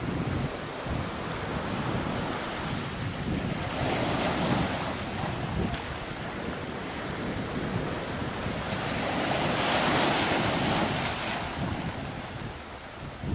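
Sea surf breaking and washing up onto the shore, swelling louder about four seconds in and again around ten seconds, with wind buffeting the microphone.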